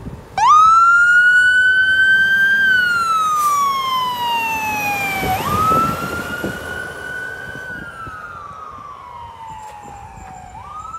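Fire engine siren starting about half a second in and wailing in slow rises and falls, each about five seconds long, growing quieter as the truck drives away.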